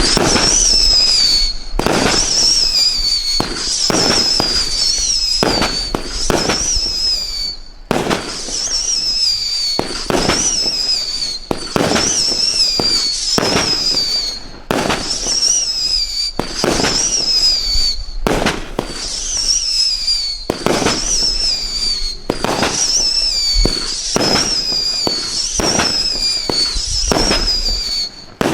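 Jack Hammer BS8046 500-gram fireworks cake firing shot after shot with whistle tails. A high wavering whistle runs almost without a break over the repeated sharp cracks of the launches and breaks.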